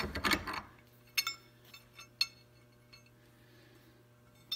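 Steel threaded bolts being handled and pulled out of a bench vise: a short scrape at the start, then several light metallic clinks with a brief ring, in two pairs about a second and two seconds in.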